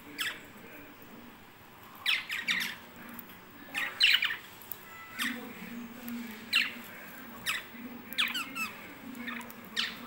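Pet budgerigars giving short, sharp calls. Each call drops quickly in pitch, and they come in small clusters about every second from about two seconds in.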